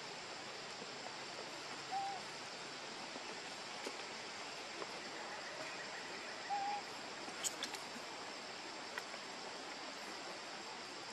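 Steady outdoor background hiss, with two short hoot-like calls about two seconds and six and a half seconds in, and a few faint clicks near the end.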